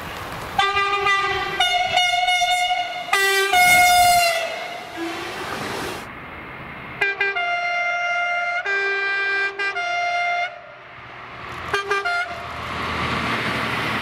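French train horns sounding in two passes. First a double-deck multiple unit gives several two-tone blasts, the last one sagging slightly in pitch. Then a red-fronted railcar sounds a longer series of alternating two-tone blasts, followed by a couple of quick short toots and the rumble of the train drawing near.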